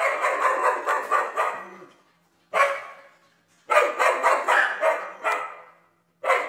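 Dog barking in quick volleys of about five barks a second, each volley trailing off, with short gaps between volleys.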